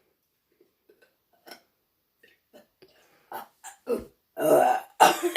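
A girl burping involuntarily, the persistent burping she cannot stop: a few short burps a little over three seconds in, then a longer, louder burp near the end.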